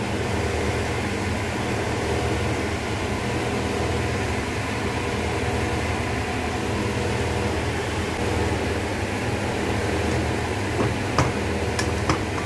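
Steady whirring hum of a kitchen fan running over a wok of braising pork hock. A few sharp clicks of a metal spatula against the wok come near the end.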